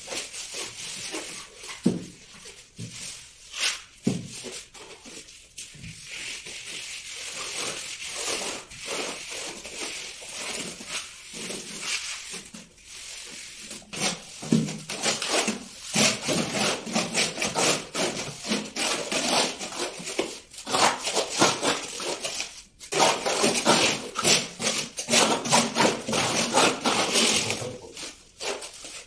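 Plastering tools scraping and rubbing over fresh cement plaster on a wall in rough back-and-forth strokes. From about halfway through, a long straightedge dragged across the plaster makes the scraping louder and denser.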